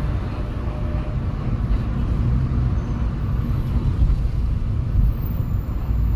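Steady low rumble of a car driving in traffic, heard from inside the car.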